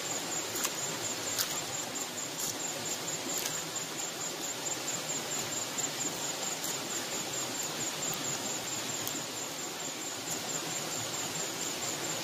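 Steady rush of flowing river water, with a high, pulsing insect trill over it and a few faint clicks.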